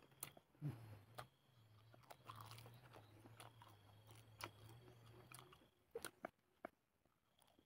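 Faint chewing of fresh wild cow's-foot leaves, with soft crunches and mouth clicks scattered through it. A low steady hum runs under the chewing and stops about five and a half seconds in.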